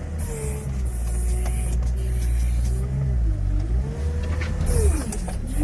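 All-terrain vehicle's engine labouring up a steep climb, its pitch dipping and rising several times and falling away near the end as the automatic gearbox hunts between first and second gear.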